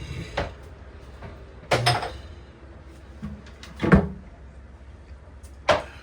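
Four sharp knocks, about two seconds apart, the third the loudest, over a steady low hum.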